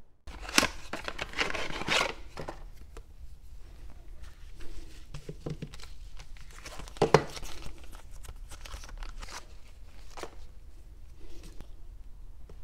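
Clear plastic packaging crinkling and tearing as a fuel pump gasket is taken out of it, followed by scattered light clicks and taps of the gasket and metal plate being handled on a cloth-covered bench, one sharper tap about seven seconds in.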